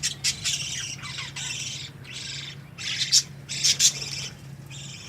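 A flock of budgerigars chattering and squawking: many short, high, overlapping calls, louder for a moment about three to four seconds in, over a faint steady low hum.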